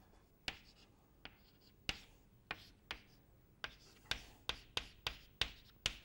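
Chalk tapping and scratching on a blackboard as symbols are written: a string of sharp taps, a few spaced out at first, then coming quicker in the second half.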